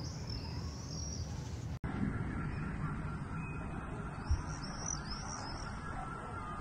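Outdoor background noise, a low steady rumble, with a few high birds' chirps near the start and again about halfway through.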